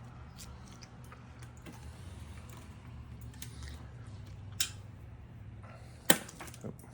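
Light clicks and taps from handling a jumper wire and its clips at a golf cart battery, with a sharper click about four and a half seconds in and a louder one near the end, over a steady low hum.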